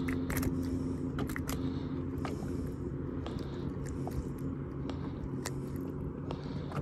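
Close handling noises as a small crappie is unhooked by hand: scattered sharp clicks and rustles over a steady low hum.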